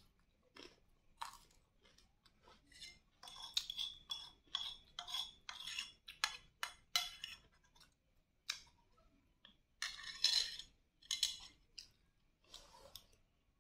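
Metal spoon scraping and clinking against a ceramic bowl in quick runs of strokes, a long run about three seconds in and a shorter one near ten seconds, some clinks leaving a brief ringing note. The bowl is being scraped nearly clean.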